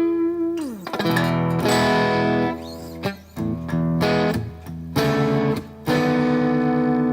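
Electric guitar played through a drive pedal: a held note slides down in pitch about a second in, then a run of struck chords and short chord stabs.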